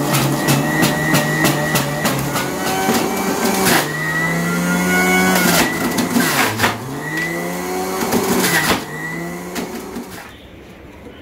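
Electric juicer motor running as apple slices and peeled kinnow oranges are fed through it, its pitch sagging and recovering a couple of times under the load of the fruit, with scattered clicks. It winds down and stops near the end.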